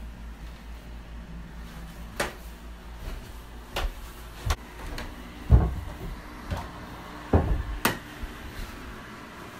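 Footsteps going down a staircase: irregular knocks and thuds, the two heaviest about halfway and about three-quarters through, followed closely by a sharp click.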